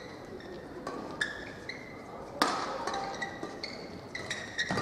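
Court shoes squeaking in short, high chirps on a badminton court mat, with one sharp knock about halfway through.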